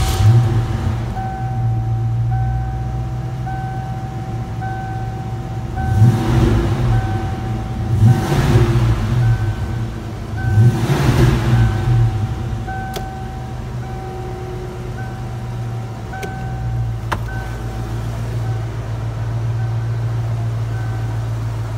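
1988 Ford McLaren Mustang's 5.0-litre V8 starting and settling into idle, revved three times about six to twelve seconds in, then idling steadily. A warning chime sounds about once a second through much of it.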